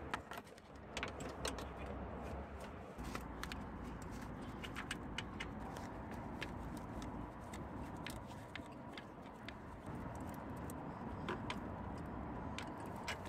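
Irregular metallic clicks and clinks of a hand wrench working on the 13mm bolts that hold a starter motor to the gearbox, over a faint steady background hum.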